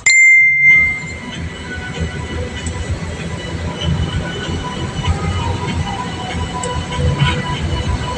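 Steady low road rumble inside a moving car. It opens with a brief loud high tone lasting under a second.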